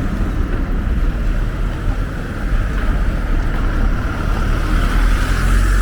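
Outdoor street noise on foot: a steady low rumble with traffic-like hiss that swells near the end.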